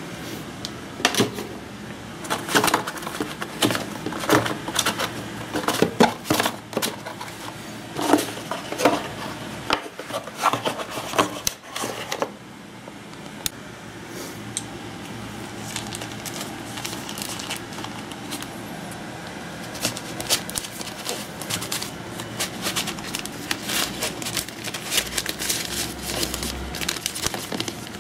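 Cardboard packaging of a tablet being handled: a run of sharp knocks and taps in the first half, then steady crinkling and rustling as the tablet's thin white protective wrap is handled.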